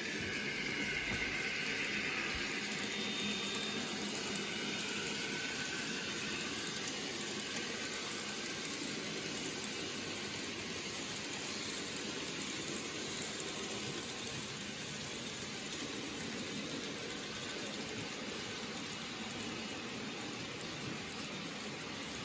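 N gauge model train running on the layout: a steady rushing noise of a small electric motor and wheels on the track, with a faint whine that wavers in pitch over the first few seconds.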